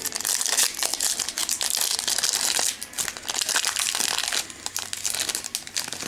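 A trading-card pack's wrapper being handled, crinkling and crackling, busiest over the first four seconds or so, then lighter.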